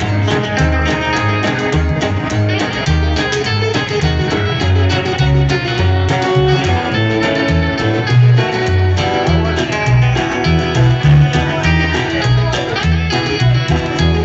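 A live trio playing an instrumental passage: plucked upright double bass notes under a strummed acoustic guitar and a picked electric guitar.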